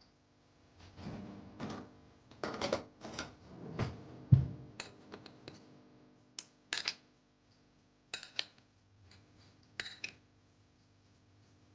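Kitchen dishes and utensils being handled: irregular clinks and knocks with some brief scraping, and one heavier thump about four seconds in.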